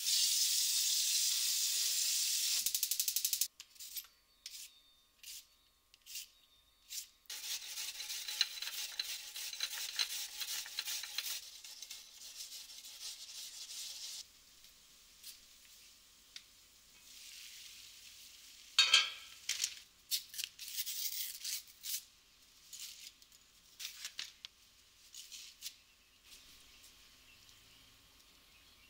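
Water running from a pot-filler faucet into an enamel pot, stopping after about three and a half seconds. A few short knocks and taps follow, then Chinese yam (nagaimo) being grated on a metal grater, a rapid scratchy rasping for several seconds. Quieter scattered clicks and taps follow, with one sharper clink about halfway through.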